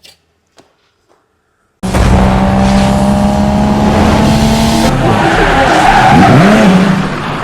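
A loud car engine revving with tyres screeching. It starts abruptly about two seconds in and fades near the end.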